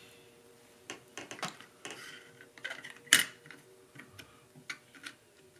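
Small steel parts of a Mossberg 500 pump-action shotgun clicking and tapping against the receiver as the shell interrupter is pressed into place, with one sharper click about three seconds in.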